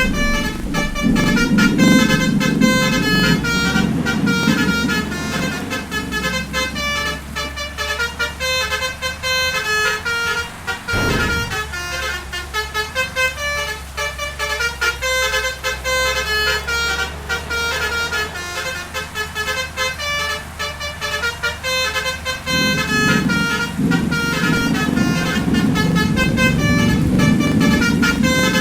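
A bus's basuri multi-tone musical horn plays a fast, stepping telolet tune of short notes throughout. Under it runs the rumble of the moving vehicle, heavier in the first few seconds and near the end.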